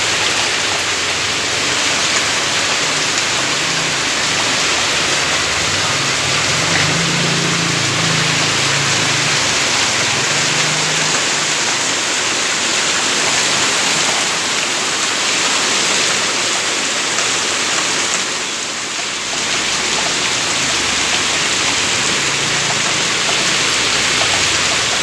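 Steady rain falling on a road surface, a dense, even hiss. A faint low hum comes and goes underneath it between about six and eleven seconds in.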